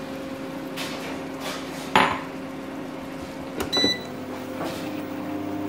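A black spoon stirring tomato purée into fried masala in a granite-coated nonstick pan, knocking against the pan: one sharp knock about two seconds in and a short ringing clink a couple of seconds later, over a steady hum.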